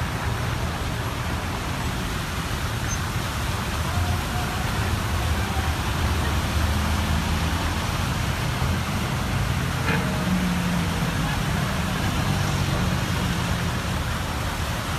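Slow road traffic through shallow floodwater: car and pickup engines running at low speed, with a steady wash of noise from tyres moving through the water.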